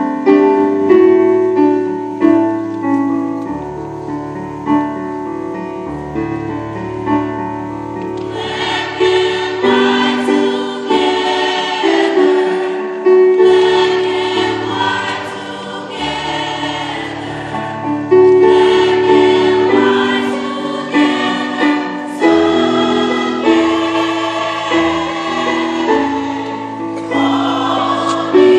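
Mixed school choir singing with keyboard accompaniment. It is softer at first, and the full choir comes in louder and fuller about eight seconds in.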